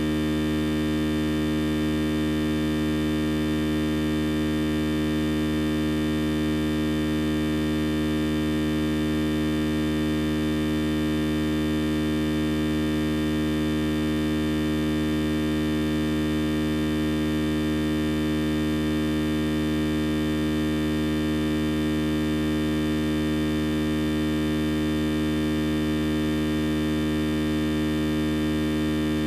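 A loud, steady, unchanging hum made of several held tones, strongest in the low range, with no break or change throughout.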